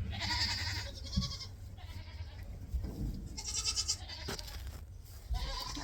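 Goats bleating, with bursts of rustling from hay being handed out.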